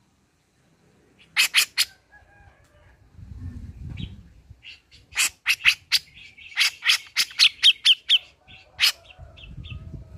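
Grey-cheeked bulbul (cucak jenggot) calling: a quick group of three loud, sharp notes, then a few seconds later a fast run of about a dozen sharp notes lasting several seconds.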